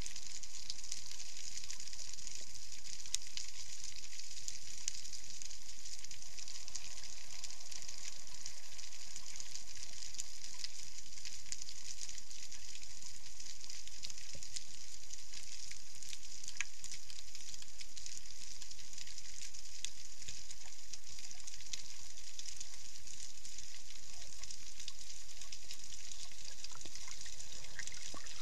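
Underwater reef sound picked up by the camera: a dense, steady crackle of countless tiny clicks over a hiss, typical of snapping shrimp on a coral reef.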